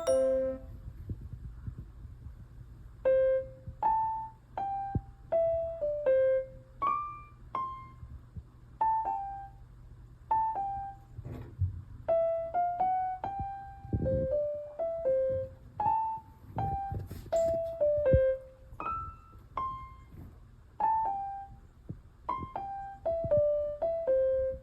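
Background music: a slow, simple piano melody of single notes, one or two a second, each ringing and dying away, over a faint steady low hum.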